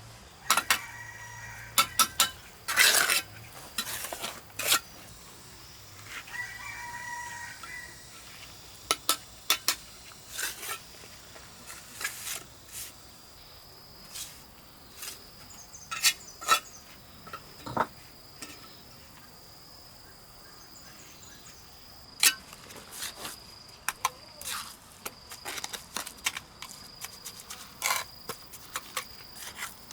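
A rooster crowing twice, about a second in and again around seven seconds, amid many sharp clicks and knocks, which are the loudest sounds. A thin, steady high whine sets in about nine seconds in and carries on.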